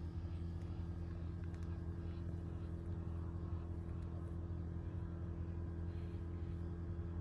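Steady low mechanical hum of a running motor, unchanging throughout, with a few faint clicks.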